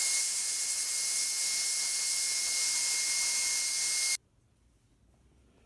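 Hair dryer blowing hot air onto a TV circuit board to heat its solder joints: a steady, loud rush of air with a thin high whine, cutting off suddenly about four seconds in.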